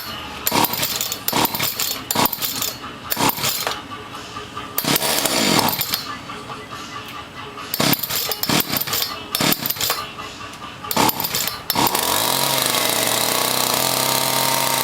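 Two-stroke chainsaw engine on a homemade RC car being pull-started: a string of short, uneven bursts as the cord is pulled and the engine coughs. About twelve seconds in it catches and settles into a steady run.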